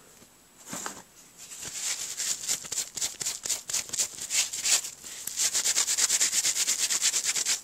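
Inky stamp being scrubbed clean with a wipe on a cutting mat: quick back-and-forth rubbing strokes that start after a short pause and grow faster and steadier, about six or seven a second, in the second half.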